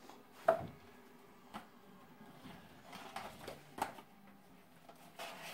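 Handling noise as items are moved on the table: a sharp click about half a second in, a few softer taps after it, and a brief rustle near the end, over a faint steady hum.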